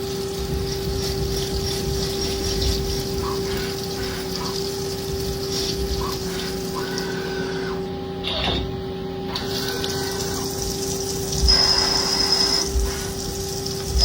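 Metal lathe running with a steady hum while cutting a thread in steel, an M16 × 2.0 thread. A short high-pitched squeal from the cut comes near the end.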